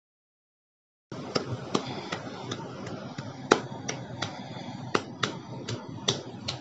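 Sharp clicks and slaps from a pair of hands, about fourteen at a steady pace of roughly two to three a second, over a steady hiss. They start after about a second of silence.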